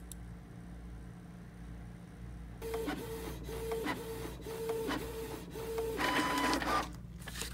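Canon TS3100-series inkjet printer starting a print-head deep cleaning cycle. After a couple of quiet seconds its mechanism starts, running in short motor pulses with clicks about twice a second. Near the end comes a louder, higher whirr of about a second, which then stops.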